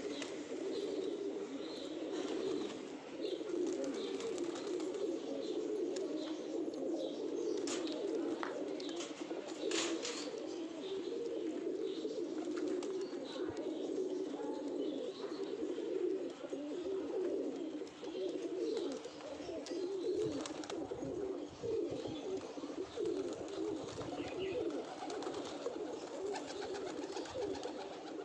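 A flock of domestic high-flyer pigeons cooing, many birds at once, their overlapping coos forming a steady, continuous warble.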